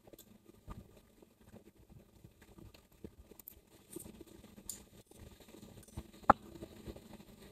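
Quiet eating sounds: scattered small clicks and taps of eating utensils against a bowl, with one sharper click about six seconds in.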